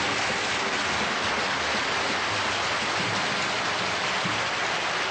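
Studio audience applauding steadily, a dense, even wash of clapping.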